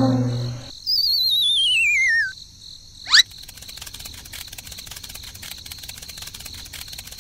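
Dubbed cartoon sound effects: a falling brass 'sad trombone' note dies away, then a high warbling whistle slides downward. A quick rising zip follows about three seconds in, and then comes a steady, fast chirping like crickets.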